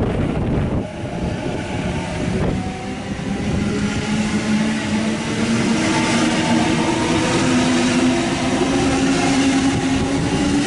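Sydney Trains Waratah series 1 double-deck electric train departing and gathering speed past the platform, a steady rumble of wheels on rails with an electric whine that slowly rises in pitch as it accelerates.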